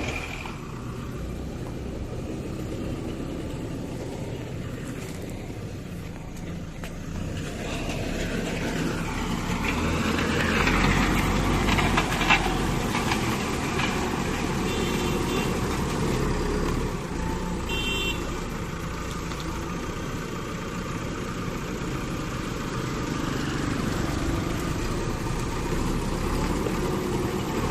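Vehicle engines running with a steady rumble that swells partway through, a single knock near the middle, and a few short high beeps.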